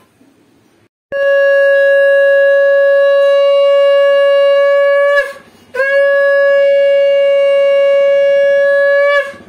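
Conch shell (shankha) blown in two long, steady blasts at a single pitch, with a short break between them, as part of a Hindu household puja.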